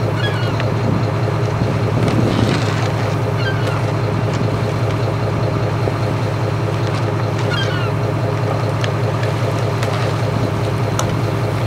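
Inboard engine of a lobster boat running steadily underway: a constant low drone, with the wash of water and wind over the hull.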